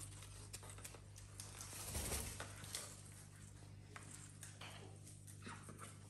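Faint scattered clicks and rustles of a cockatoo nibbling and tearing at fresh corn leaves, with a soft thump about two seconds in, over a steady low hum.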